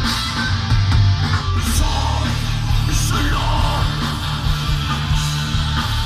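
Thrash metal band playing live and loud: distorted electric guitar over bass guitar and drums.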